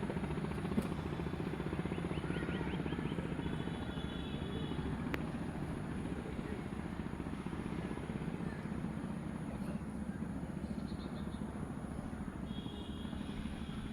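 A steady low motor drone with a rapid pulse, with a few short bird chirps over it.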